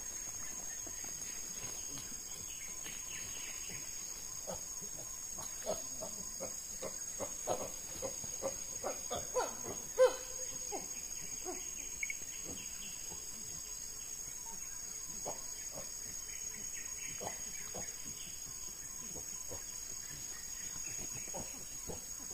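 Steady, high-pitched chorus of rainforest insects. A run of short sharp knocks and sounds comes through it in the middle, quickening and loudest at about ten seconds in.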